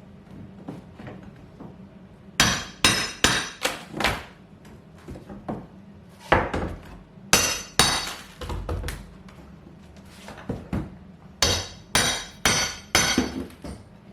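Hammer blows during kitchen demolition, coming in three quick runs of four or five sharp strikes each, with a short pause between runs.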